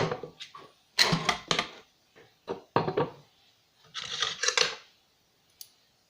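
Hard objects being handled and set down: a sharp knock, then several short bursts of clattering and knocking, with gaps of quiet between them.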